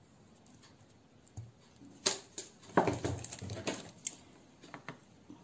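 Handling noises as salt is added to flour in a plastic mixing bowl: a soft thump, a sharp click a little after two seconds in, then about a second of rustling and knocking.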